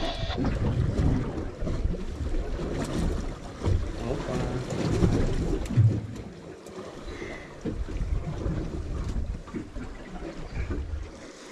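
Wind buffeting the microphone, with water slapping and sloshing against a boat's hull at sea; the loudness rises and falls in gusts.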